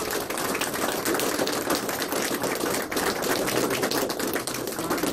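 A small group of people applauding: many hands clapping in a dense, steady patter.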